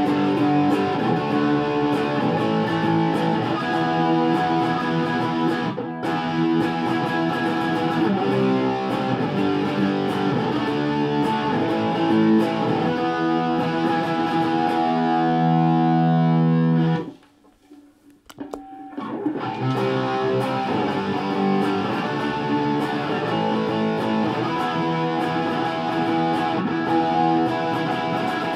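Electric guitar played through a BOSS SD-1 Super OverDrive pedal, first with the pedal bypassed, then with the overdrive switched on. The playing stops for about two seconds a little past the middle.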